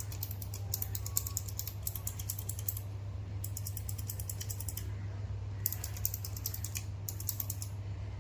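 Push-button switches on an Audio Array AI04 audio interface's circuit board clicking as they are pressed rapidly over and over, in several runs with short pauses, to work kerosene through the contacts and free rust that makes the buttons crackle. A steady low hum runs underneath.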